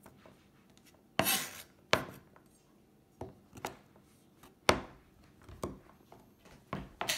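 Chef's knife chopping through small blocks of melt-and-pour soap and hitting the cutting board, about eight irregular chops.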